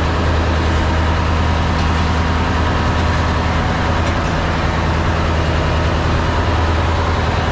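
A fishing boat's engine running steadily below deck: a loud, unchanging low drone.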